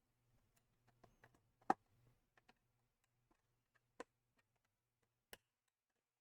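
Faint, scattered plastic clicks and taps of a laptop keyboard being levered up out of its retaining clips, with one sharper snap about two seconds in and a few more spaced a second or so apart.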